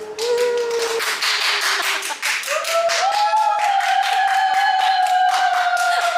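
Fast, even hand clapping, about five claps a second, with a high voice holding long drawn-out notes over it, the longest rising slightly about two and a half seconds in.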